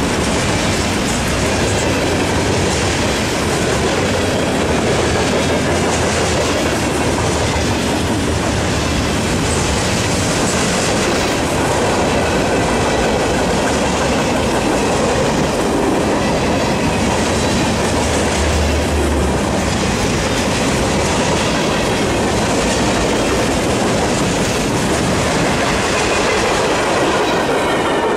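Freight cars rolling past at close range, a steady loud rumble of steel wheels on rail with faint wheel squeal at times.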